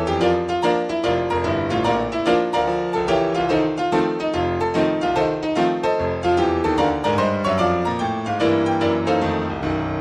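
Piano music with quick, evenly struck notes, a brisk accompaniment to the silent film.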